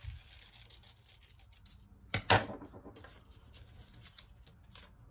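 Scissors cutting magazine paper, with light paper rustling and small clicks. A sharp double click a little past two seconds in is the loudest sound.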